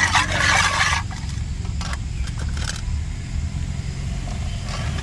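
Spoon scraping around a bowl while mixing spice powders into oil, loudest in the first second and then lighter, over a steady low rumble.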